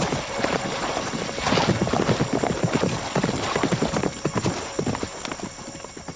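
Hoofbeats of several ridden horses on dusty ground, a dense clatter that fades away near the end as the horses move off.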